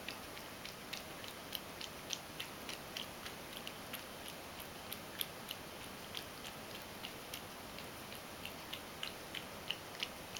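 Ragdoll cat lapping up spilled milk from a wooden floor: a quick, irregular run of small wet clicks, about three a second.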